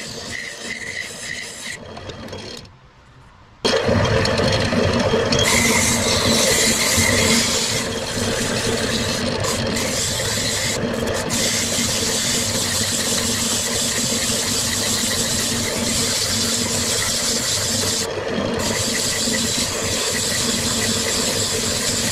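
Old Craftsman wood lathe running while sandpaper is held against the spinning maple cup: a steady rubbing hiss over the lathe's steady hum. A gouge cuts the wood in the first couple of seconds, then the sound drops away briefly before the sanding starts about four seconds in.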